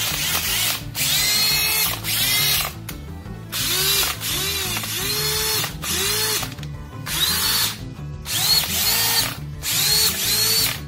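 Makita DDF456 18V cordless drill motor run in a series of short trigger pulls, each whine rising as it spins up and falling as it coasts down. It is fitted with fresh carbon brushes and sounds heavily loaded, which the repairman takes for a damaged rotor (armature) and stator.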